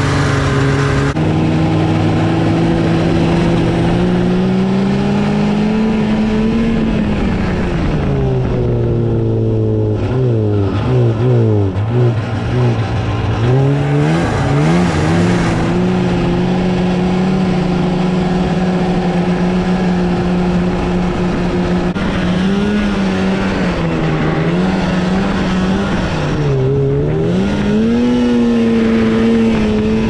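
Snowmobile engine running under way, its pitch rising and falling as the throttle opens and closes, with quick swings of revs in the middle and again near the end.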